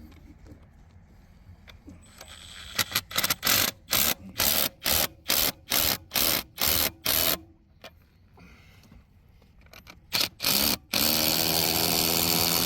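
Cordless impact wrench tightening the bolts of a Romac repair coupling on a 3-inch PVC water main: a string of about ten short trigger bursts, about two a second, then two more bursts and a steady two-second run of hammering near the end.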